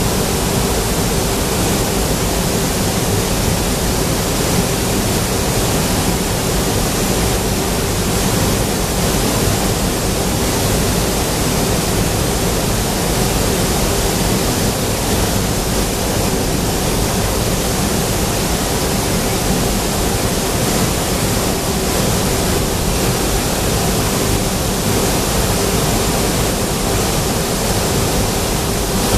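Steady, loud rushing noise of forge-shop machinery with a constant hum, unchanging while the forging press squeezes the hot steel sample flat.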